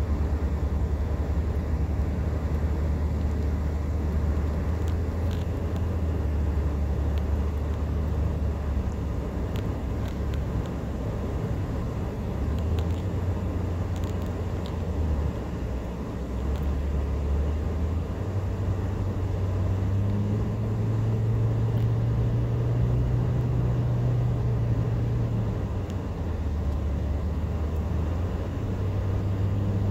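Steady low drone of a car's engine and tyre noise heard from inside the cabin while driving. The engine note climbs a little higher for several seconds past the middle, then settles back.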